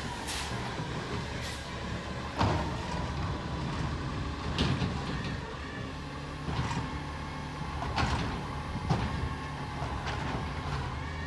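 A McNeilus ZR automated side-loader garbage truck works a curbside cart: its diesel engine runs steadily while the lifting arm raises the cart and dumps it into the hopper. About half a dozen sharp knocks and clanks come a second or two apart as the cart and arm bang against the hopper.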